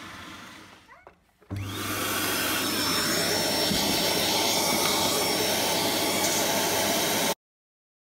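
A vacuum cleaner's hose nozzle sucking dirt out of the opened dust bin of an iRobot Roomba 871 robot vacuum: a steady rush of air over a low motor hum, with a faint high whistle. It starts about one and a half seconds in and cuts off abruptly near the end.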